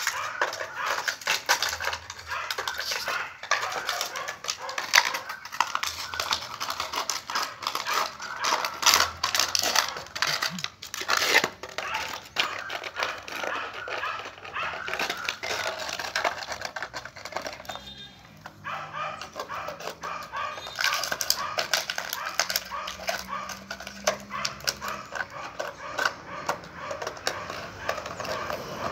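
A puppy playing and mouthing at the ground, with a dense run of quick clicks and scratches throughout and dog sounds mixed in. It goes briefly quieter about eighteen seconds in.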